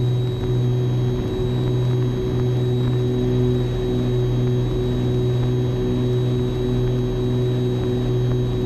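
Twin piston engines and propellers of a Piper Aerostar 602P droning steadily in the climb after takeoff, with a slow pulsing in the hum.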